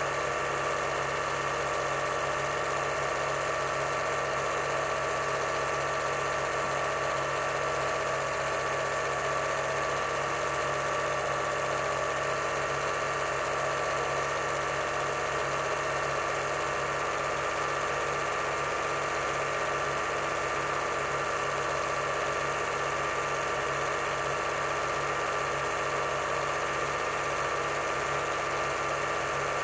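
8mm cine projector running: a steady mechanical whirr with a fast, even chatter from the film transport.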